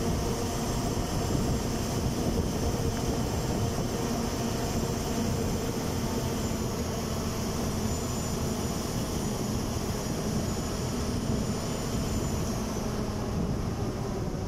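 Steady engine hum and road noise of a moving vehicle, heard from on board. A thin, high whine comes in about six seconds in and stops near thirteen seconds.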